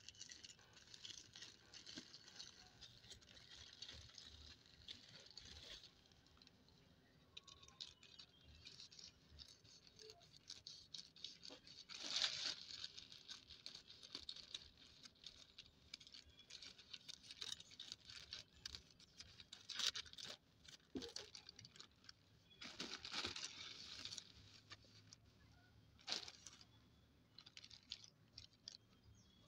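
Faint rustling and crinkling of a plastic courier mailer bag being handled, slit with a knife and torn open, with several louder bursts of tearing plastic.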